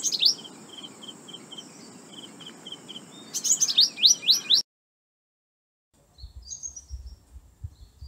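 Purple sunbird calls: sharp, high sweeping chips at the start and a louder cluster of them about three and a half seconds in, with a steady run of short notes, about four a second, in between. The calls cut off suddenly; after a short silence, faint thin high chirps with low thumps start near the end.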